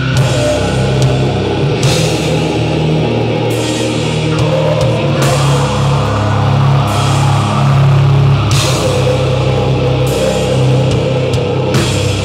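Live funeral doom metal from a full band: slow, heavy sustained guitar and bass chords over drums, with a cymbal crash every second or two.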